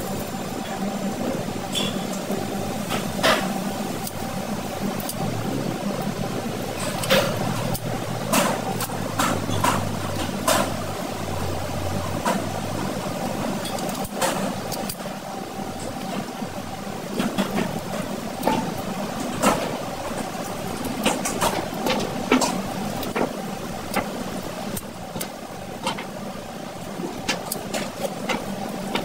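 Kitchen scissors snipping through giant freshwater prawn shells and clicking against a stainless steel sink, many sharp irregular clicks over a steady background hum.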